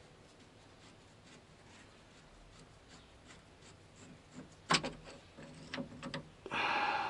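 Hands working a large hydraulic hose flare fitting on a Bobcat T250's hydrostatic pump lines: faint handling ticks, then a sharp metallic click about two thirds of the way in, a few lighter clicks, and a short rubbing scrape near the end as the fitting comes loose.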